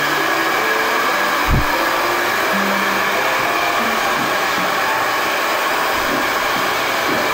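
Steady whirring, blowing noise of a small electric motor, standing in as foley for the motor of a stair lift carrying a person down the stairs. There is one low thump about a second and a half in.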